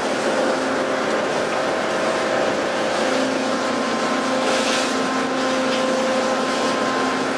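A fishing boat under way at sea: a steady engine hum mixed with the rushing noise of wind and waves along the hull.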